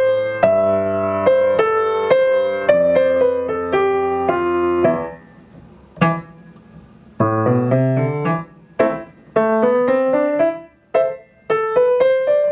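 Acoustic grand piano played with both hands: a phrase of connected, overlapping notes, a pause of about two seconds near the middle, then a second phrase of shorter notes with small gaps between them.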